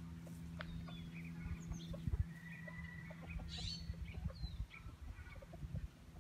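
Chickens clucking here and there, with small birds chirping, over a steady low hum.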